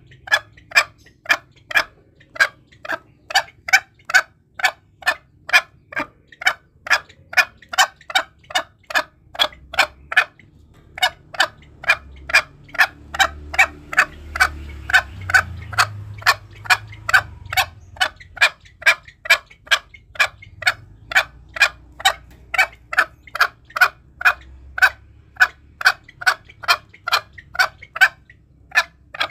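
Green junglefowl calling: a short call repeated about twice a second, in long even runs with brief breaks about 2 and 10 seconds in and near the end. A faint low rumble sits under the calls in the middle.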